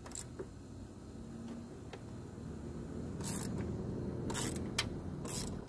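Socket wrench working on the power steering pump's mounting bolts through the pulley holes: four short metallic scrapes and clicks, one near the start and three in the second half, over a low steady rumble.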